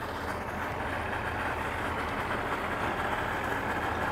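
Mercury two-stroke outboard motors idling steadily with a low hum. They are idled up a little high, which is thought to keep them from stalling when shifted into gear.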